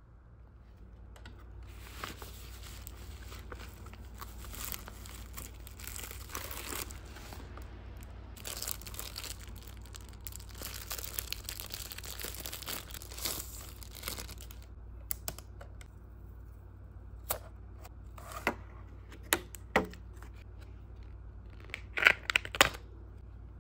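Plastic packaging crinkling and tearing as a phone-case box is unwrapped by hand. In the second half come a series of separate sharp clicks and snaps from handling the box and case, the loudest a quick cluster near the end.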